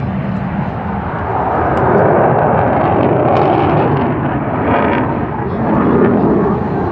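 Military jet aircraft flying past overhead: a loud, noisy jet-engine roar that swells about two seconds in, dips briefly about five seconds in and rises again.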